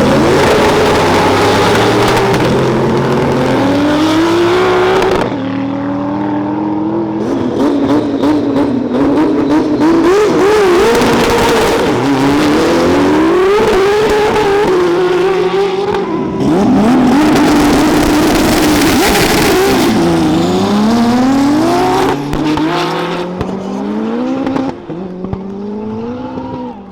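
Race cars launching and accelerating hard down a drag strip, engines revving up through the gears so that the pitch climbs and drops back again and again. Several runs follow one after another, and the sound dies down near the end.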